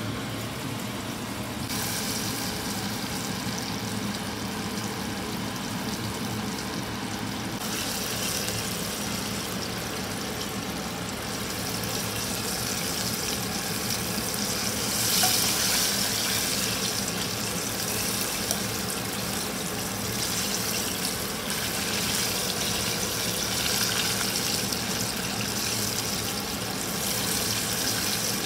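Floured chicken pieces deep-frying in a pot of hot oil: a steady sizzle that gets louder about two seconds in and swells briefly near the middle as a spatula turns the pieces.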